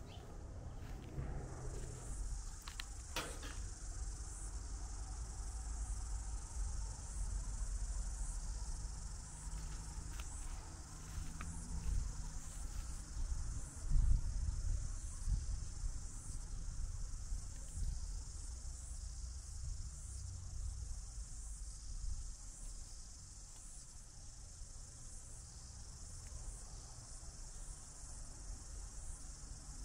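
A steady, high-pitched chorus of chirring insects. Underneath runs a low rumble that swells briefly about fourteen seconds in.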